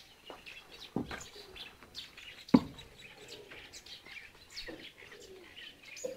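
Small birds chirping in short, scattered calls, with a dove cooing now and then. A sharp knock stands out about two and a half seconds in, with a smaller one about a second in.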